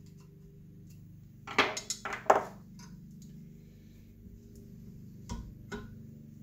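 Sharp metallic clinks and taps of tools and small valve parts being handled on a Chevy 454 cylinder head during disassembly. There is a quick cluster of loud clinks about one and a half to two and a half seconds in, and two lighter taps near the end, over a steady low hum.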